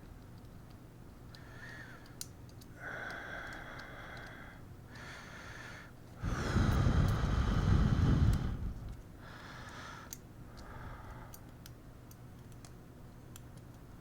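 A person breathing through the nose near the microphone, one breath every second or two, with a faint whistle. About six seconds in there is a louder rush of air lasting two to three seconds. Small sharp ticks of tweezers and tools come in between.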